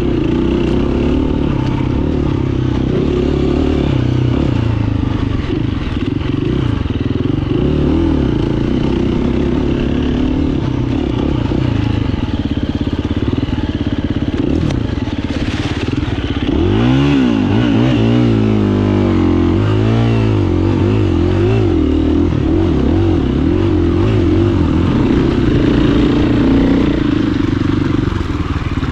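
Dirt bike engine running under the rider, its revs rising and falling with the throttle, with a run of quick rev swings about two-thirds of the way through.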